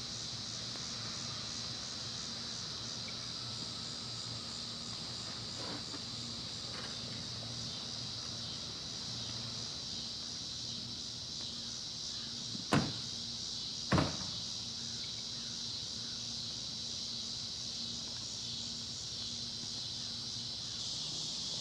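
Crickets chirping in a steady chorus at dusk, over a low steady hum. About two-thirds of the way through, two sharp knocks come about a second apart.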